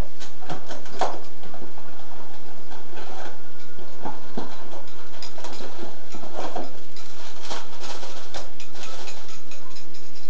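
Rustling of a boxed cake mix's paper packaging with scattered light clicks and knocks of metal mixer beaters and utensils against a glass mixing bowl and the counter, over a faint steady hum.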